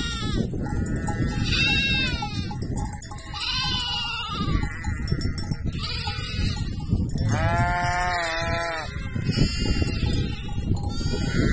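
Sheep and lambs bleating: a run of short, high, overlapping calls, with one longer, lower bleat about seven seconds in.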